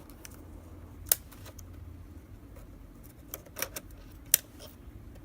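A few sharp clicks and taps, the loudest about four seconds in, as a DDR2 notebook memory module is slid into its slot in an iMac. A faint low hum runs underneath.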